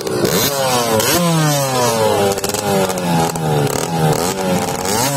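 Small motocross bike's engine revved on the spot, the pitch rising sharply and dropping back several times in short throttle blips.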